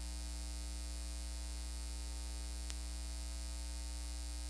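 Steady electrical mains hum with a buzzy ladder of overtones under a hiss, from videotape playback over a blank stretch of tape after the recording ends. There is one faint click near the middle.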